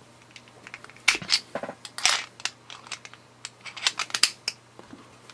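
Sharp metal-and-plastic clicks and rattles of a Stanley multi-bit screwdriver as its bit is pulled out and another fitted into the shaft, in two short bursts.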